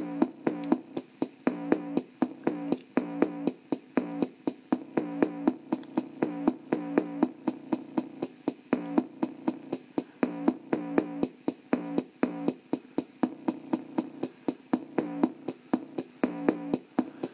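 Electronic bass-test music with a fast, repeating drum-machine beat, played through the small built-in speaker of an Orion VHS/CRT TV combo. The bass comes out thin, with little of the deepest bass reproduced.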